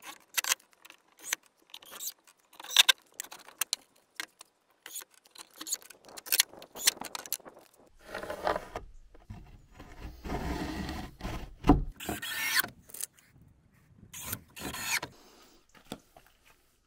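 OSB boards being handled and knocked together as drawer boxes are fitted, with sharp knocks and clatter through the first half. From about 8 to 15 seconds a cordless drill runs in several short runs, driving screws into the boards.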